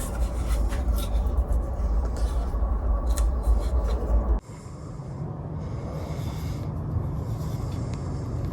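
Shop Fox W1704 mini wood lathe running with a low hum while something rubs against the spinning wood bowl. The sound cuts off abruptly about four seconds in and gives way to a quieter, steady noise.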